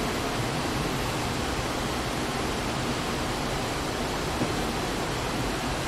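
Steady, even hiss of room tone with no speech, with one faint tap about four and a half seconds in.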